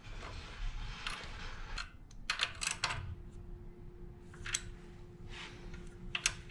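Light metallic clicks and taps of hand tools and parts as billet ratio rocker arms are fitted on a Predator 212 engine's cylinder head: a quick cluster of clicks a couple of seconds in, a single click later, and another pair near the end.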